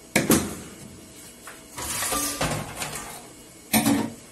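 Plastic mixing bowls being handled and set down: a sharp knock just after the start, a scraping rustle in the middle, and another short clatter near the end.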